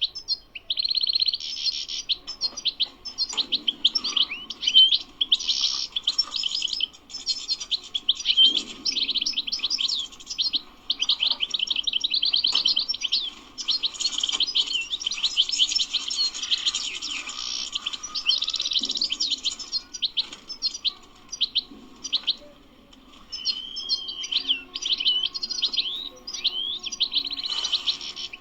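European goldfinch singing: a long run of rapid twittering, trills and buzzy notes, with a short pause about three quarters of the way through.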